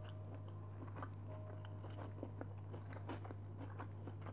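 Soft, close-miked chewing of a mouthful of boiled egg and rice, with small scattered wet mouth clicks. A steady low hum runs underneath.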